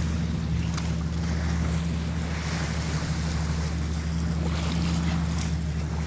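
A boat's motor running with a steady low hum, under wind noise on the microphone and the rush of water.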